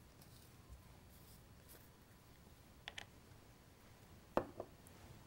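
Small plastic paint jar handled on a workbench: a faint double click about three seconds in, then a louder double tap about four and a half seconds in as the pot and its lid are opened and set down, over quiet room tone.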